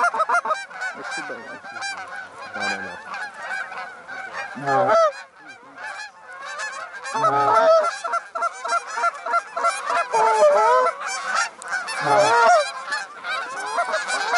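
A large flock of Canada geese honking in flight, many calls overlapping. A few louder honks stand out about five, seven and twelve seconds in.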